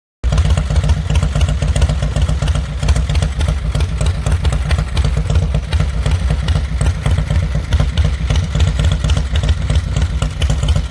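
Small engine idling with a steady, rapid pulsing. It cuts in abruptly just after the start. The owner puts its uneven idle down to the kill switch bouncing against the engine case and touching the magneto.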